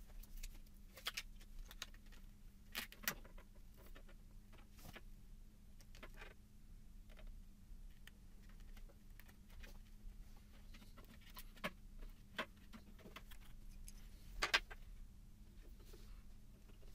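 Faint handling sounds of a drilling template being positioned on a plastic headlight housing: scattered light clicks and taps of fingers and a small tool. The sharpest tap comes about fourteen seconds in, over a low steady hum.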